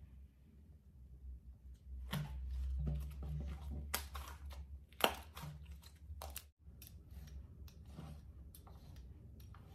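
Thick glossy slime being stretched and squeezed between the hands, giving sticky clicks, crackles and pops, loudest from about two to five seconds in. After a brief gap, a metal spatula presses and scrapes through the slime with softer clicks.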